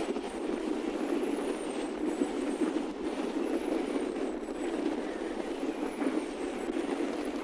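Wind and spinning wind turbines: a steady rushing noise, with a faint high swish that comes back about every second and a half.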